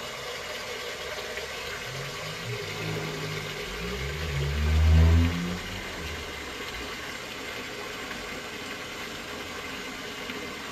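Tap water pouring steadily into a partly filled sink basin. A low hum joins it about two seconds in, swells to its loudest around five seconds and fades out by about six seconds.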